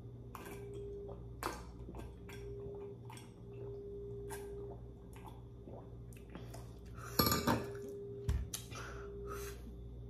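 Eating utensils clinking and knocking against dishes in a scattered series of short clicks, with the loudest clatter about seven seconds in, over a steady low hum.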